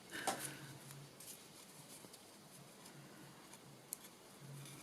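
Faint rustling and light taps of hands handling a ragged-edged strip and tying it round an MDF craft tag, with a few small clicks.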